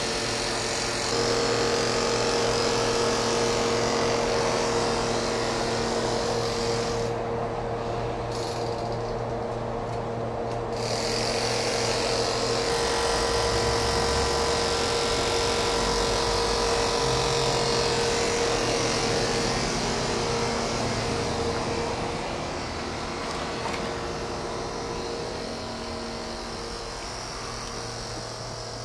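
Ex-Tokyu 5000 series electric railcar standing with its underfloor machinery running: a steady mechanical hum with a held high tone. It steps up about a second in and fades over the last several seconds.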